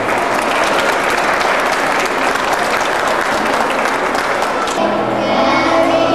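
Audience applauding, a dense patter of many hands clapping. Near the end, music or singing starts up again as the clapping fades.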